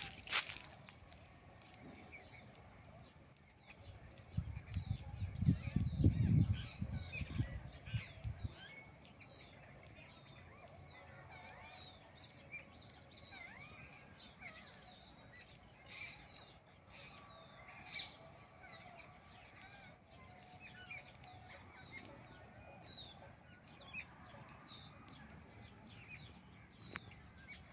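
Many small birds chirping and calling over a steady, high, pulsing insect trill. A louder low rumble runs from about four seconds in for roughly four seconds.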